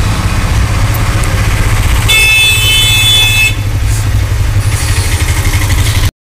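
Steady low rumble of a motor vehicle engine running close by. About two seconds in, a high-pitched horn sounds for about a second and a half.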